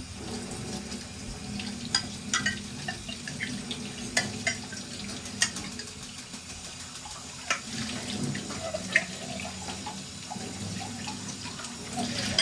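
Tap water running into a stainless steel sink while small steel cups and bowls are rinsed by hand, with scattered sharp clinks of metal dishware knocking together.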